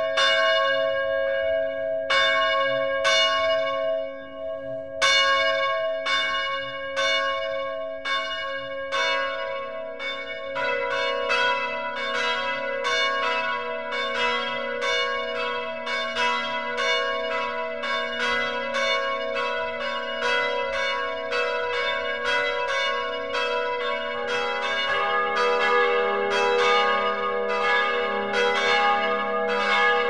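Church bells ringing. Single strokes come about once a second at first. From about ten seconds in, several bells strike faster and overlap into a continuous peal, and a lower bell joins near the end.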